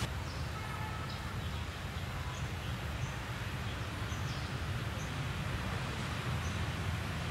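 Outdoor ambience: a steady low rumble with short, high bird chirps about once a second.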